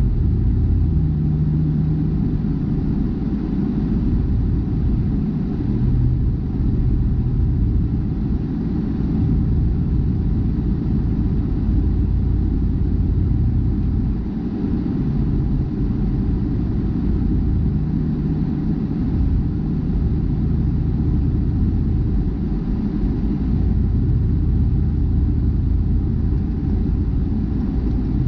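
Car driving on the highway, heard from inside: a steady low rumble of engine and road noise, with an engine hum that shifts in pitch now and then.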